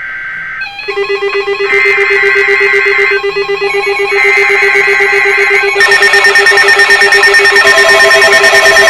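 Several electronic emergency-alert tones and alarm beeps sounding at once and overlapping. A fast-pulsing low beep starts about a second in, higher intermittent beeps join about two and four seconds in, and more pulsing tones pile on about six seconds in, growing louder.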